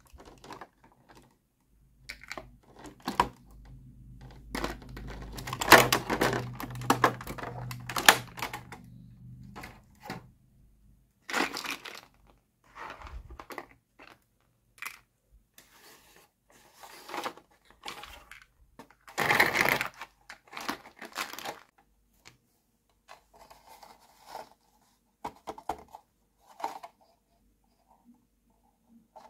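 Small plastic toy house parts and a clear plastic blister tray being handled and unpacked: irregular clicks, taps and crinkling of the thin plastic. A denser stretch of rustling runs through the first third, and a short louder clatter comes about two-thirds of the way through.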